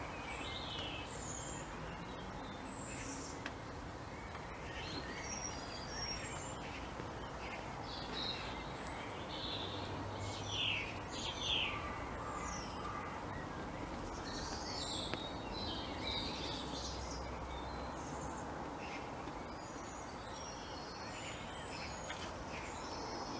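Wild birds chirping and singing, many short high calls over a steady background hiss, with the loudest run of chirps about ten to twelve seconds in.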